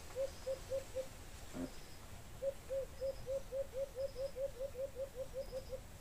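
A bird calling in a series of short, low hooting notes: a brief run at the start, then after a pause a longer run of about fifteen notes that quickens slightly. Faint high double ticks recur in the background, and there is one soft knock about a second and a half in.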